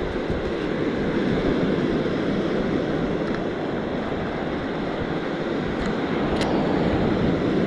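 Ocean surf and wind on a beach: a steady, even rushing noise.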